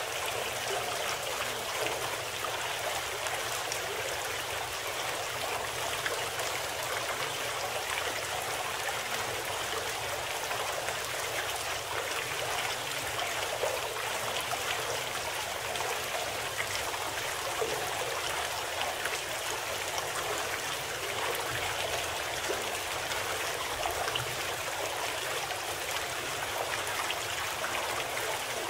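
Steady sound of flowing water, an even rushing with fine trickling detail and no change in level.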